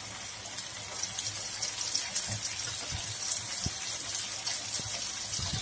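Cubed raw potatoes frying in oil in a non-stick pan: a steady sizzle, with a few faint knocks while red chilli powder is spooned in.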